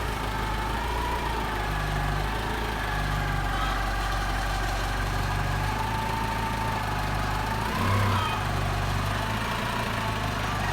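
Forklift engine idling steadily with a wavering whine above the engine note, briefly rising about eight seconds in.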